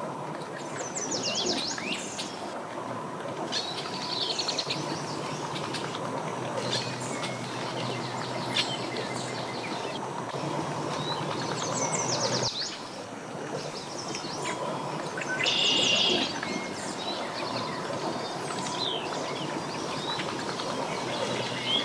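Songbirds chirping in short quick trills, repeated every few seconds, over a steady low background hum.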